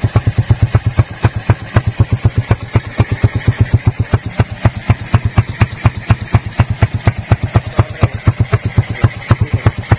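Motorcycle engine idling steadily through a homemade exhaust muffler made from a used Khong Guan biscuit tin, with even exhaust pops about six times a second.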